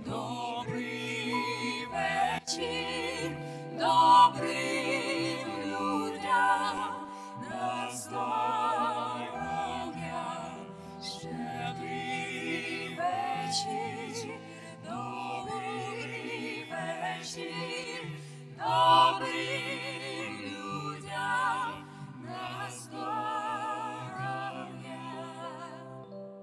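Mixed vocal group of women's and men's voices singing a Ukrainian Christmas carol in harmony through microphones, the voices held with vibrato over sustained low bass notes.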